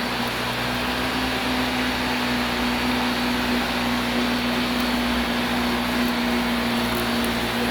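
Vacuum cleaner running steadily: a constant motor hum over a rush of air.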